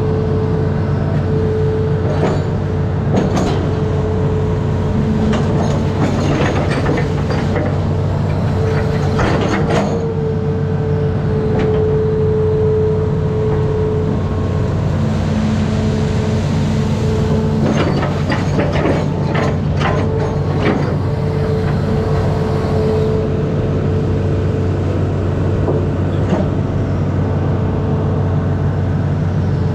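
Amphibious excavator's diesel engine running steadily, with a hydraulic whine that comes and goes. Several stretches of metallic clanking and rattling come from the pontoon tracks and arm as the machine moves and works.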